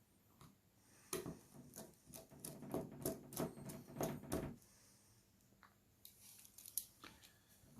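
A quick run of light clicks and taps, then a few fainter ticks near the end: a small Phillips screwdriver and tiny screws being handled while the screws holding a smartphone's rear frame are taken out.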